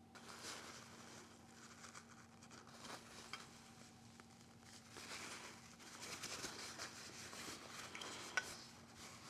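Faint rustling and rubbing of a paper towel wiping excess paintable caulk off a 3D-printed PLA part, in uneven strokes with a few small clicks. A single sharp click about eight seconds in.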